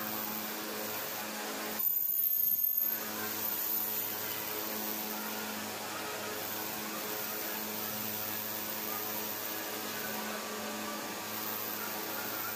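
Glass edge-polishing machine running with a steady electric-motor hum and a low drone. About two seconds in there is a brief, louder burst of noise lasting about a second.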